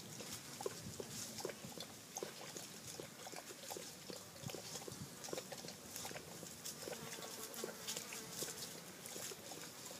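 A dog eating from a bowl: a run of short, irregular clicks and smacks from mouth and bowl.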